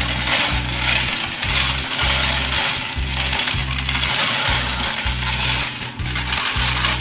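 Background music with a steady beat and bass, over the clatter of small coloured stones rattling in the turning drum of a Bruder Scania toy cement mixer truck.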